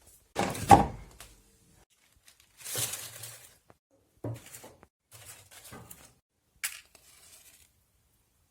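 A series of separate handling noises: short bursts of tearing or rustling and a few knocks, the loudest with a dull thud about half a second in and a sharp click near the end.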